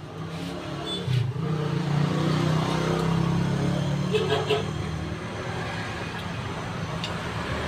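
Road traffic passing close by: a motor vehicle's engine running, its pitch rising about a second in and loudest from about two to four seconds in.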